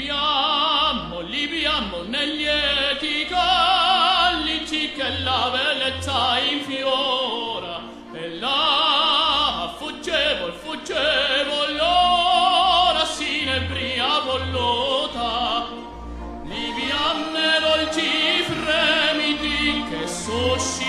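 Operatic singing: a trained voice holding long notes with wide vibrato over orchestral accompaniment with low, regular bass pulses.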